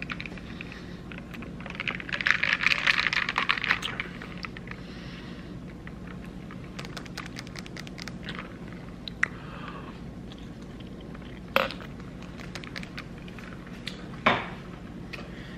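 Glass cup with a bamboo lid and straw being handled: a dense run of light rattling clicks about two seconds in, then scattered single clicks and taps.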